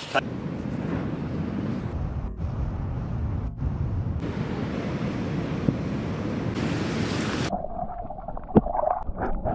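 Surf and wind rushing on an action camera's microphone, a dense noise broken by several abrupt cuts. About seven and a half seconds in it gives way to muffled underwater sound, dull with the highs gone, with a few sharp clicks.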